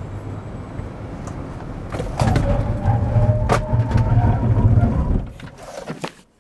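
Kia electric vehicle on a braking test: tyre and road noise builds as it speeds up, then turns into a loud stretch with a low rumble and a steady squeal as it stops hard, dying away about five seconds in.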